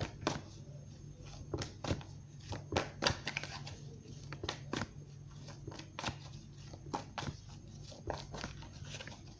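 A tarot deck being shuffled by hand: irregular papery snaps and flicks of the cards, over a steady low hum.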